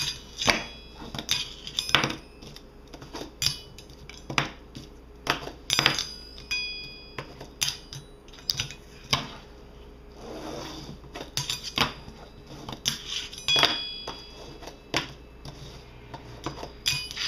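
A fingerboard ridden on a metal ski-slope rail: repeated sharp clacks as the board's trucks land on the rail and the table, some with a short metallic ring. About ten seconds in there is one longer scraping grind along the rail.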